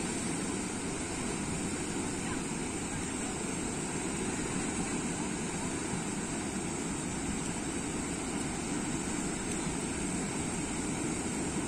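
Steady rushing of surf breaking on a sandy beach.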